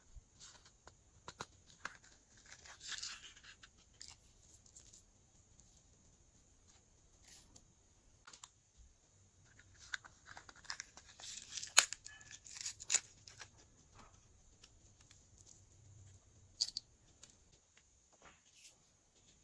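Glossy slime being mixed and squished by hand: scattered sticky clicks and pops, busier crackling about two to three seconds in and again around ten to thirteen seconds in, with one sharp pop near the middle of that second stretch.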